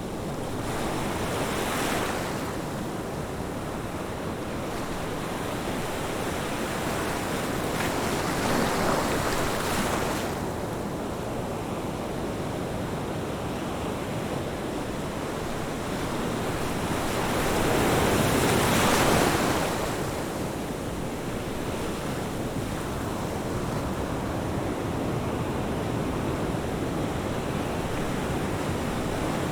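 Ocean surf washing on a beach: a steady hiss of water with waves breaking and swelling up three times, about 2, 9 and 19 seconds in, the biggest near the end of the second third.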